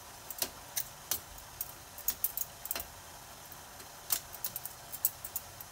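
A metal utensil clinking and scraping against a perforated stainless steel colander in short, irregular clicks as steamed noodles are tossed and mixed.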